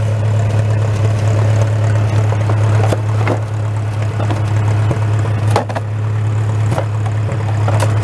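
Massey Ferguson tractor's engine running at a steady speed as the tractor drives over snow, with a few sharp clanks, about three seconds in, five and a half seconds in and near the end.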